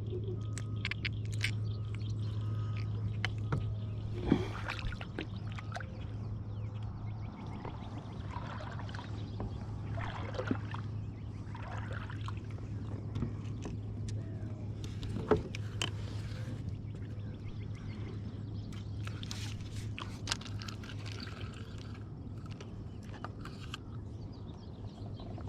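Handling sounds in a kayak: a few sharp knocks of gear against the hull, about three in all, over light water sloshing and a steady low hum.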